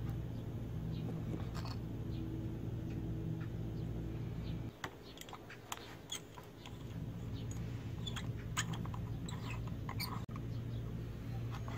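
Small clicks and scrapes of a steel C-clamp being fitted and its screw turned tight, scattered through the second half. A steady low hum runs underneath and drops away about five seconds in.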